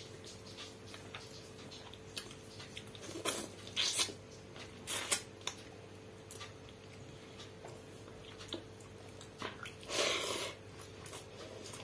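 Close-miked hand-eating sounds: chewing and wet mouth clicks while fingers squish soaked rice in a steel bowl of pakhala. The clicks are scattered, with a few short wet bursts and a longer squelch about ten seconds in.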